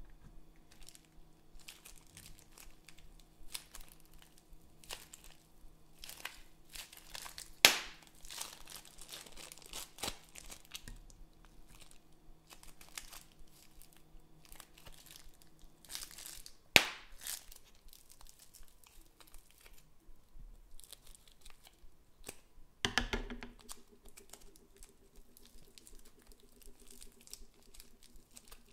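Small plastic zip-lock bag of foam beads crinkling and crackling as it is handled and squeezed, with the foam beads crunching, and two sharp loud clicks along the way.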